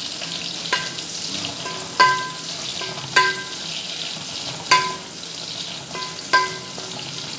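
Onion, ginger and fish sautéing in a pan, sizzling steadily while a metal spoon stirs them. The spoon clinks against the pan about once a second, and each strike rings briefly.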